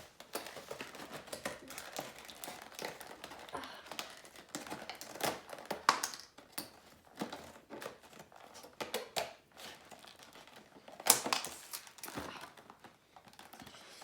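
Plastic toy packaging crinkling and clicking as it is handled and snipped open with scissors, an irregular run of sharp clicks and rustles with a louder crackle near the middle and another a little before the end.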